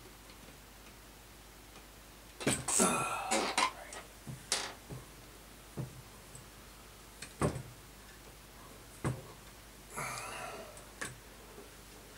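Metal parts and hand tools being handled at a bench: a few scattered light clicks and knocks, with two short rustling passages, one a few seconds in and one near the end.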